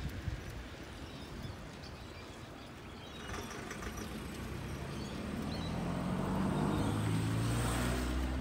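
A motor vehicle passing, its engine hum building up over the second half and loudest near the end.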